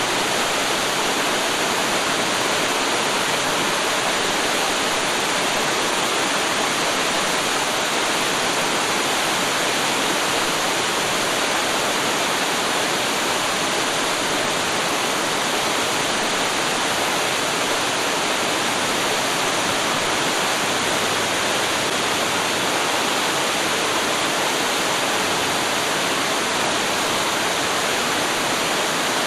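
Waterfall: water pouring and splashing in a steady, unbroken rush, bright and hissy with little deep rumble.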